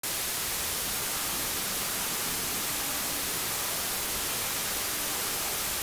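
Steady hiss of analogue television static: the white noise of an untuned CRT set.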